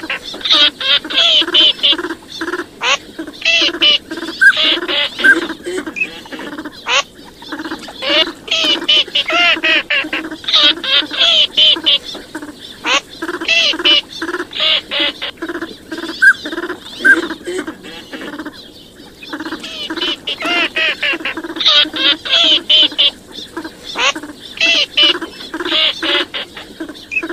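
Recorded calls of teal and another wild duck, played as a night-hunting lure: a dense, continuous run of quacks and calls, several a second, with a brief lull about two-thirds of the way through.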